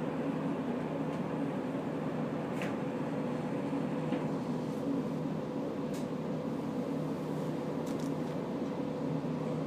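Diesel railcar engine idling with a steady hum, heard from inside the passenger cabin while the train stands still, with a few faint clicks.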